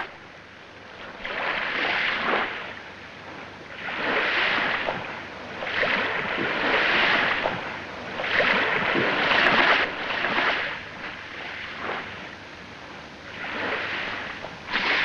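Sea water rushing and splashing in regular swells, about five of them a couple of seconds apart, with a longer lull before the last.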